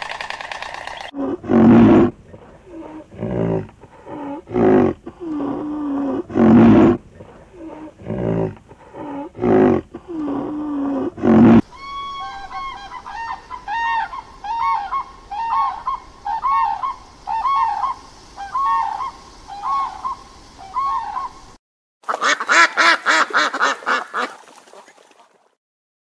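A grey heron gives about ten harsh, low croaks. Then a common crane calls in a long run of short, higher notes that each rise and fall. After a brief gap, a ruddy shelduck honks rapidly for a few seconds.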